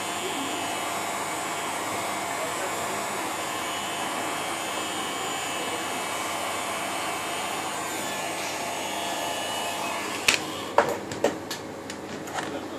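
Heat gun blowing steadily over a phone's cracked front glass to soften the adhesive beneath it. Near the end the rush eases a little and a few sharp clicks and knocks follow.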